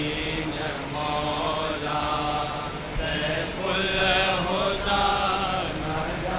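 A voice chanting a recitation in drawn-out, wavering phrases of about a second each, over a steady low hum.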